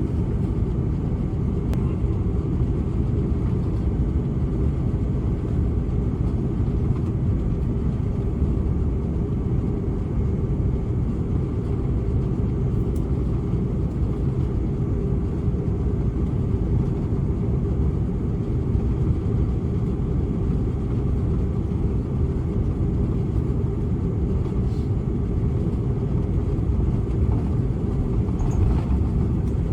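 Cabin noise inside an Airbus A330-343: a steady low rumble from its Rolls-Royce Trent 700 engines and the airflow, holding at an even level.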